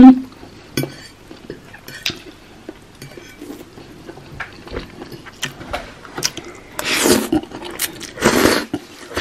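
Eating spaghetti: small clinks and taps of a fork on a plate, then two loud slurps of noodles, one about seven seconds in and another a second later.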